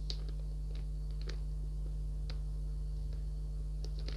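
Steady low hum under a few faint, scattered light clicks and crinkles from sealed plastic bags of model-kit runners being handled.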